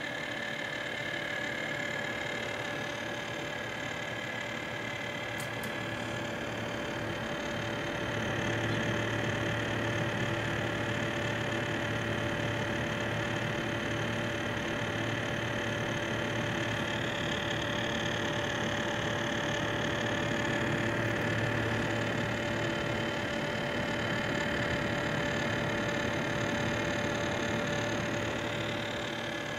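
Corsair H100 liquid CPU cooler's pump running with a steady rattling, grinding noise and a steady tone over it, growing somewhat louder about eight seconds in: the well-known pump noise fault of Corsair's liquid coolers.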